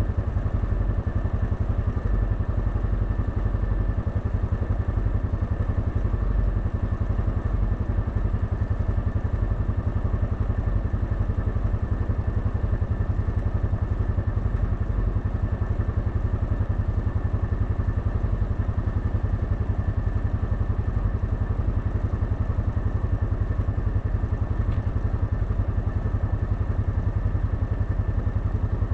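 Quad bike engine idling steadily, a fast even low pulse.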